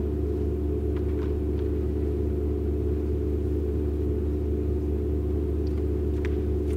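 A steady low drone of several held tones, with no rhythm or melody, with a few faint ticks about a second in and again near the end.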